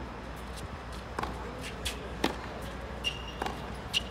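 Tennis ball being struck by racquets and bouncing on a hard court in a baseline rally: several sharp pops, the loudest about two seconds in. Short shoe squeaks on the court surface near the end.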